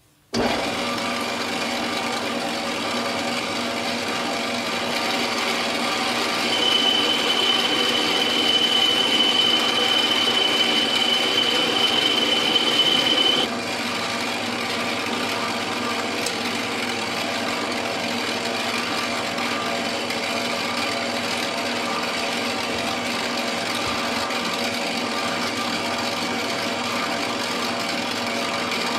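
Metal lathe running steadily, its spindle turning a small metal part while a small boring bar bores out the hole. From about six seconds in a high steady whine rides over the machine noise for about seven seconds, then cuts off suddenly.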